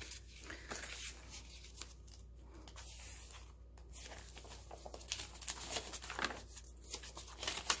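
Paper rustling and scraping as a large paper tag is handled in a journal pocket and a page is turned, with soft crinkles and clicks, busier near the end.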